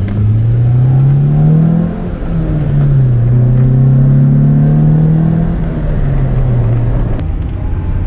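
A 1999 Acura Integra LS's 1.8-litre four-cylinder engine under way, heard from inside the cabin, running smoothly now that its misfire has been cured with a new distributor cap, rotor and plug wires. The engine note climbs, drops back about two seconds in, climbs again and holds, then eases off near the end.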